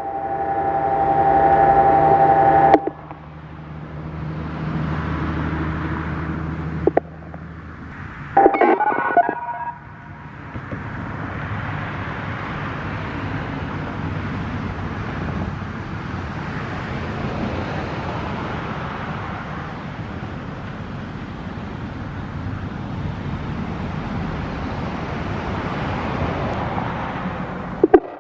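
Whelen WPS-4004 electronic warning siren's loudspeakers sounding a loud, steady tone that cuts off about three seconds in, followed by a low hum and a second brief tone near nine seconds. After that comes a long, even rushing noise.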